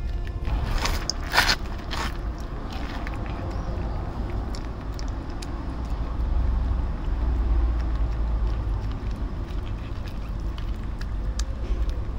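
A stray cat chewing wet canned cat food from a foil tray close by, over a steady low rumble. A few sharp clicks stand out about a second in.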